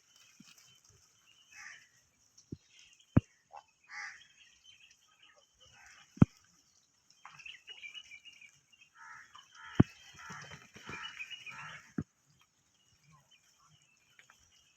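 Blackbucks grazing: scratchy tearing and chewing of grass, busiest in the second half, with five sharp clicks scattered through.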